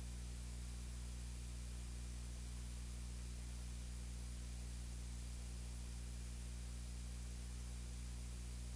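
Steady low electrical mains hum with its overtones, under a layer of hiss; no voice is heard.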